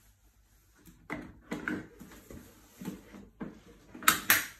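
Infant car seat being lowered onto a pram frame, with a few soft knocks and rustles, then two loud sharp clicks close together near the end as it locks onto the frame's adapters.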